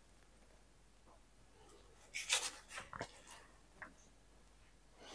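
Plastic sauce sachet crinkling briefly about two seconds in, then a light click and a few soft taps as a spoon scoops sauce from a small jar.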